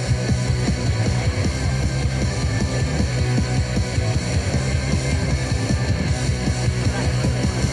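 Music with a strong bass and no singing.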